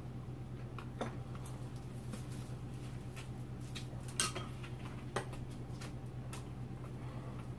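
Metal spoon and chopsticks clicking against bowls and dishes while eating: a few scattered light clicks, the sharpest about four seconds in, over a steady low hum.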